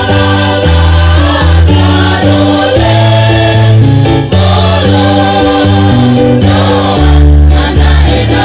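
A choir singing an East Nusa Tenggara regional song in harmony, amplified through a PA, over an accompaniment with a deep bass line that changes note about once a second.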